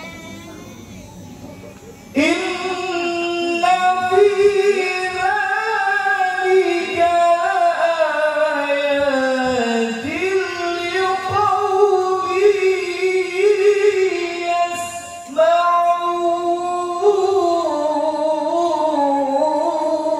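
A man chanting solo and unaccompanied through a handheld microphone and PA, in long, drawn-out melismatic phrases whose pitch glides up and down. The chant begins about two seconds in, with a short breath pause about three-quarters of the way through.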